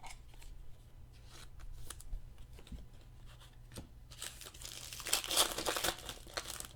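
Light clicks and taps of trading cards being handled, then about four seconds in, a couple of seconds of crinkling and tearing as a card pack wrapper is torn open.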